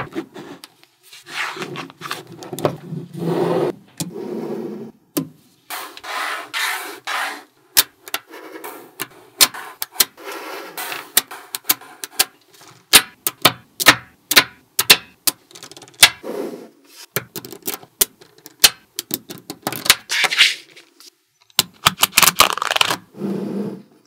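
Small magnetic balls clicking sharply as they snap together, with rattling and rubbing as slabs of them are pulled apart, slid and pressed into place.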